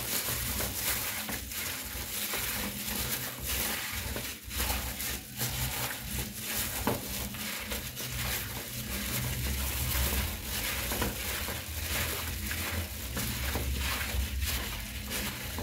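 Gloved hands mixing raw chicken pieces with oil and spices in a bowl: the thin plastic gloves crinkle and the oiled meat squishes in a steady, irregular run of small rustles and clicks.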